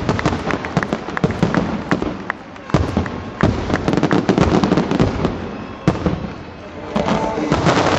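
A fireworks display with a dense, rapid crackling of bursting shells and firecrackers. Two single heavier bangs come at about a third of the way in and again near three-quarters, each after a brief lull.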